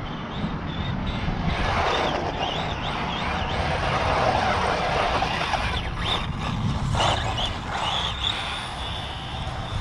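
Electric radio-controlled car on a Tamiya TT02 four-wheel-drive chassis driving over coarse asphalt: motor whine and tyre noise swell as it passes, loudest between about two and five seconds in.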